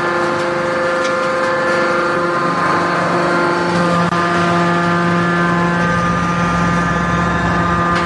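Hydraulic power unit of a scrap-metal baling press running, a steady whine of several tones over a mechanical hum. About two and a half seconds in, a deeper hum comes in and holds.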